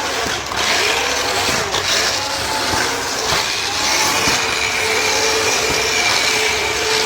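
Small electric motors of remote-control toy bumper cars whining as they drive, the pitch shifting as they speed up and turn, with a few sharp knocks scattered through.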